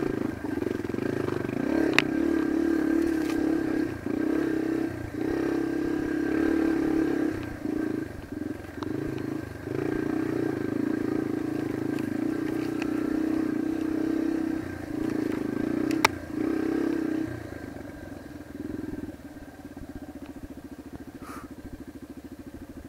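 Yamaha dirt bike engine pulling in low gear over rocky single track, the throttle opening and closing again and again, with two sharp knocks, about two seconds in and again about sixteen seconds in. For the last few seconds the engine settles to a quieter, even running as the bike slows.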